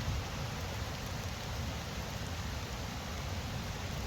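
Steady wind noise in the woodland, with a fluctuating low rumble of wind on the microphone.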